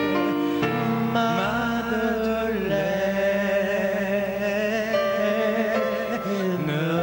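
A singer holding long, wavering notes over instrumental accompaniment.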